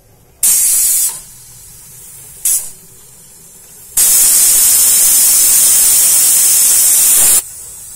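Stovetop pressure cooker's weighted whistle lifting and venting steam under pressure: a short loud hiss, a brief puff, then a long hiss of about three and a half seconds. This is the cooker's whistle, the sign that it has come up to full pressure.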